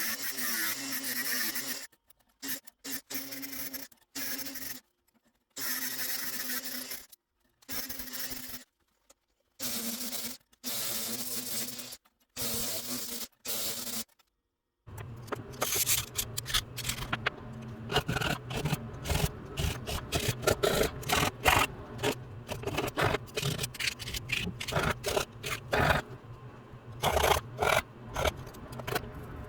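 Scraping and rubbing of a file and abrasive on a small handmade divot tool being shaped. In the first half, short clips of steady scraping noise are cut off by sudden silences; from about halfway on, quick repeated strokes follow each other closely.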